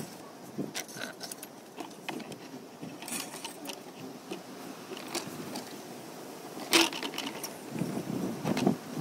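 Small clicks, taps and rattles of wire and thin plastic being handled as a plastic water bottle is set in a plastic basin and wired to it, with one louder knock about seven seconds in.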